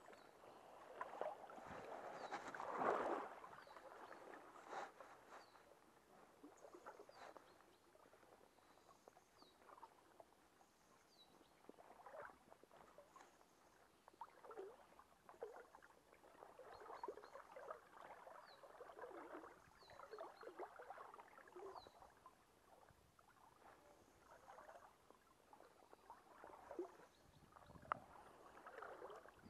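Faint, irregular sloshing and swishing of river water as an angler wades, loudest a few seconds in, with faint high chirps now and then.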